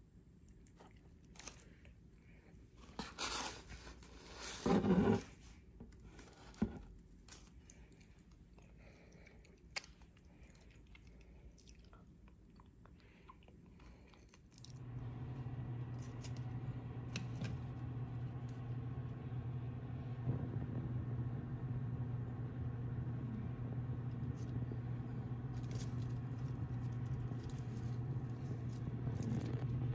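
A few brief rustles and crunches with light clicks while the donut box is handled. About halfway through, a steady low electrical hum with one strong low note starts and holds, from the equipment of a hydroponic plant setup.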